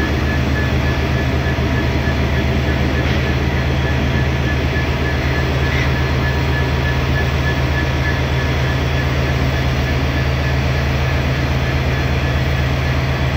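Diesel locomotive engine running steadily at low revs: a constant deep hum, with a steady high-pitched whine over it.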